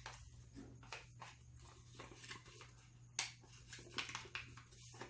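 Faint rustling and crinkling of origami paper being folded and creased by hand, with a louder crackle about three seconds in, over a steady low hum.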